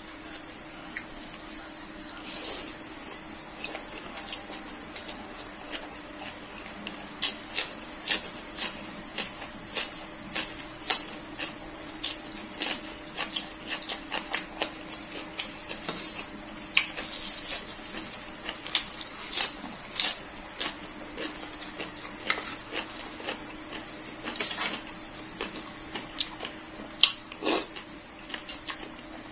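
A steady chorus of crickets chirring, with irregular small clicks and smacks through it from someone eating rice noodles: chewing, and a fork and spoon clinking on a metal plate.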